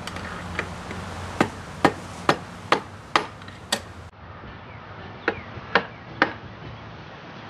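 Hammer blows on a steel extension bar set against a seized piston inside a Johnson 140 outboard powerhead: six sharp metallic taps about half a second apart, then after a short break three more. The piston is being driven to work it loose, and it does not move.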